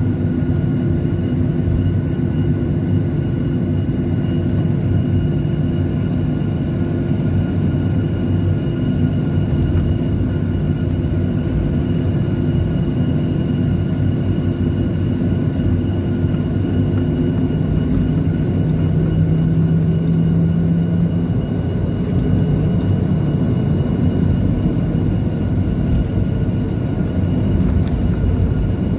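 Cabin noise over the wing of a Boeing 737 taxiing, its turbofan engines running at low thrust: a steady rumble with a constant whine of several tones above it. A low tone in the engine noise shifts about two-thirds of the way through.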